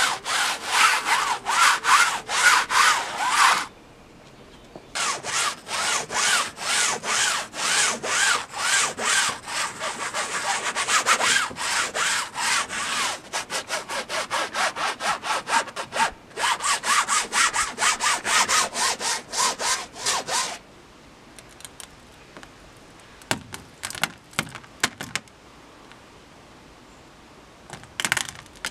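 A sponge scrubbing back and forth through wet paint on a hard flat surface, in fast rhythmic strokes of about three or four a second. The strokes stop briefly near 4 s and again near 16 s, and stop altogether about 20 seconds in. After that come a few faint crinkles and taps from a wad of crumpled plastic pressed into the paint.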